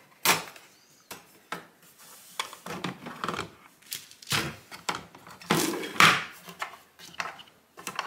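Sunbeam Mini Barista espresso machine's metal drip-tray grate and plastic drip tray being handled. It makes a string of separate clicks, knocks and clatters as the grate is lifted off and set down and the tray is pulled out, the loudest about six seconds in.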